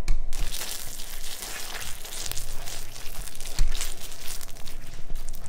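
Crackling, rustling scraping noise of a hot hard-candy batch being worked on the candy table, with scattered light knocks. It starts abruptly at the outset and eases off near the end.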